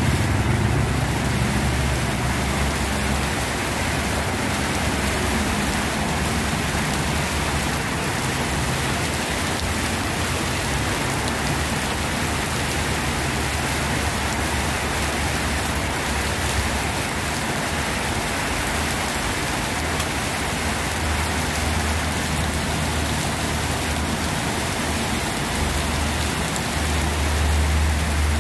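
Steady rain falling during a storm, an even hiss throughout, with a low rumble underneath that grows stronger near the end.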